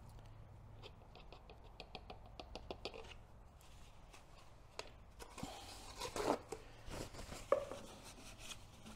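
Faint handling sounds at a generator's oil filler: a quick run of light clicks about a second in, lasting about two seconds, then rustling and rubbing as a paper towel wipes around the fill opening.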